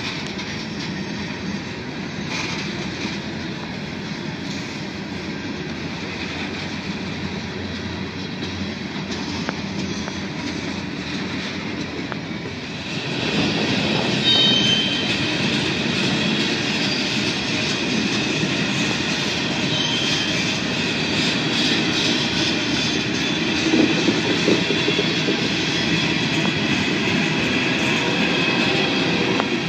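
Freight train of covered hopper cars rolling past, a steady rumble and clatter of wheels on rail that grows louder about thirteen seconds in, with a couple of brief high wheel squeals.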